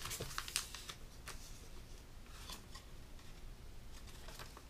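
Origami paper being handled and creased by fingers: faint rustling with a few short, crisp ticks scattered through.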